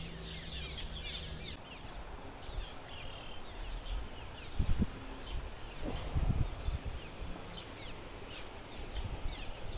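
Small birds chirping: many short, quick, falling chirps that repeat over a steady outdoor background hiss. A few low bumps come near the middle.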